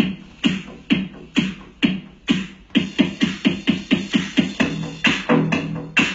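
Background music with a hard, even beat that doubles in pace about three seconds in.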